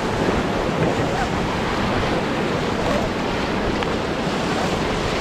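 Whitewater river rapids rushing steadily around a raft, with wind buffeting the microphone.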